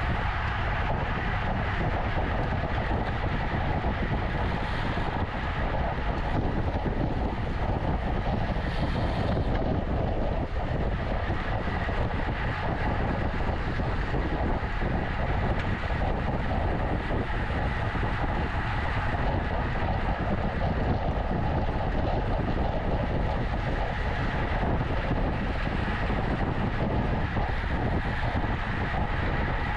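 Steady wind rush over the microphone and road noise from a road bike riding at racing speed, a constant rumble with no breaks.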